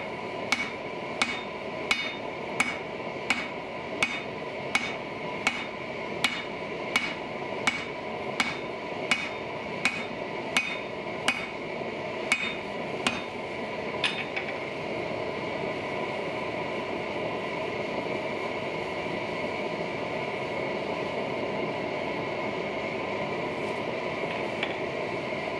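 Hand hammer blows on a hot steel billet on an anvil, about three every two seconds, setting the forge welds of a five-layer go mai billet. The hammering stops about halfway through, leaving the steady hiss of the gas forge.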